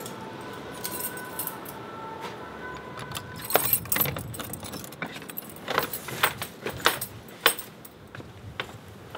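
Bunch of keys jangling, and a key working the lock of a wooden door: a string of sharp metallic clicks and rattles starting about three and a half seconds in.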